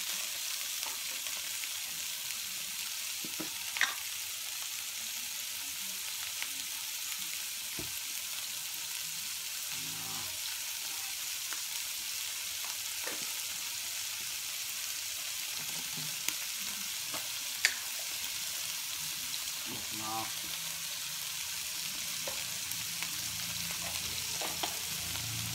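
Chopped pigeon meat sizzling steadily in hot oil in a frying pan as it is stir-fried, the meat already seared firm. Two sharp clicks stand out, one about four seconds in and one a little past halfway.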